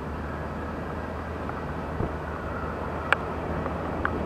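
Steady rushing noise of heavy rain with the low rumble of a distant twin-jet airliner's engines at takeoff power on its roll down a wet runway, rising slightly toward the end. A few sharp ticks, the loudest about three seconds in.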